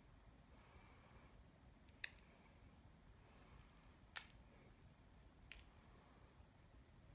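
Near silence broken by three short, sharp clicks about two seconds apart, the last one fainter.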